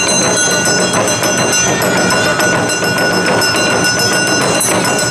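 Awa Odori festival band playing: taiko drums beaten in a fast, dense rhythm under a held, high ringing tone that stops near the end.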